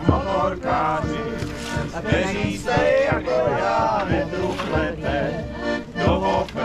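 Accordion playing live, with a voice singing over it.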